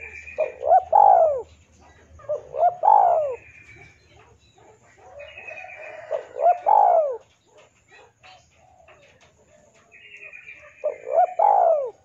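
Spotted dove (tekukur) cooing: four phrases a few seconds apart, each two short notes followed by a longer note that rises and falls in pitch.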